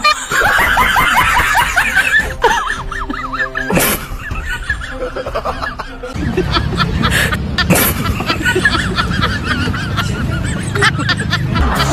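Laughter, in quick honking cackles, with music behind it and a sharp knock about four seconds in.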